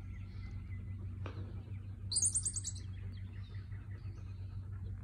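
A bird gives a short, very high trill of six or seven quick notes about two seconds in, over a steady low hum.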